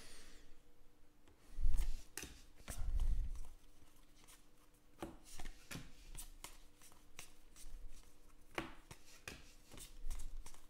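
A stack of trading cards handled in the hands, cards slid off the pile one by one with a run of soft, irregular flicks and rustles of card stock. There are a couple of duller bumps from the handling near the start.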